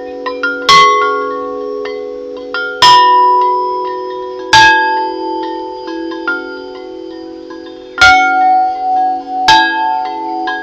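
Large homemade wind chimes of 2-inch seamless aluminum tubing, tuned to C, D#, F, G and A#, ringing. About five loud strikes and several lighter ones each ring on in long overlapping tones.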